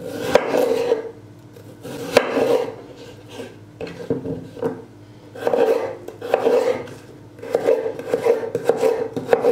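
Chef's knife slicing through a raw peeled potato on a wooden cutting board: several drawn cuts with a rasping scrape, and a few sharp knocks as the blade meets the board.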